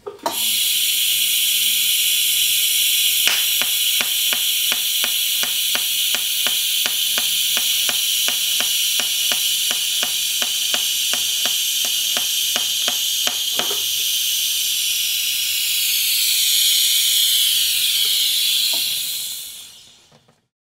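DC-pulsed TIG welding arc fusing stainless steel: a steady, loud, high-pitched hiss that starts suddenly and dies away near the end. Through the middle, sharp ticks come about three times a second, in step with the current pulsing between peak and base amps.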